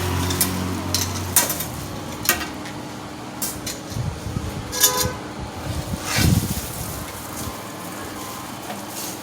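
Scattered clinks and knocks of metal softbox frame parts being handled. One clink about five seconds in rings briefly, and a dull thump follows a second later.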